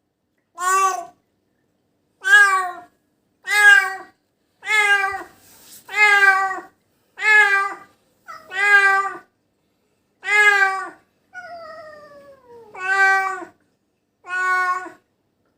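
Domestic cat meowing over and over, about eleven loud, drawn-out cries roughly a second apart, one of them longer and sliding down in pitch near the end. The crying is the cat in distress after what its owner believes was a bite from a venomous animal.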